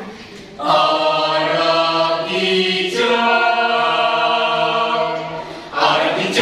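Mixed choir of boys and girls singing a janger song together in long held notes. The first phrase enters about half a second in, a second phrase about three seconds in, and a new one starts near the end.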